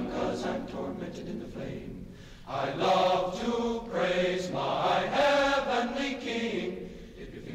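A group of voices chanting together on an old LP recording, softer at first, then louder and sustained from about two and a half seconds in, dying away near the end.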